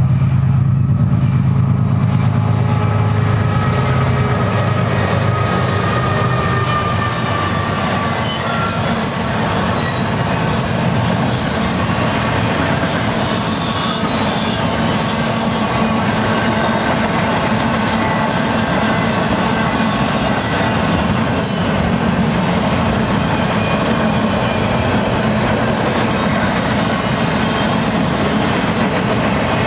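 A BNSF diesel locomotive's engine drone passes in the first few seconds. Then a double-stack intermodal train's well cars roll by steadily, with wheel rumble and thin, steady wheel squeal.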